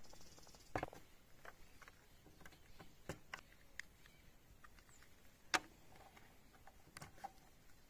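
Scattered light clicks and knocks of a PCP air rifle's plastic rotary magazine being handled and laid on a wooden board, the loudest about five and a half seconds in.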